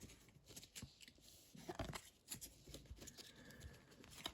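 Near silence, with faint scattered clicks and short rustles of trading cards being handled and slid against one another.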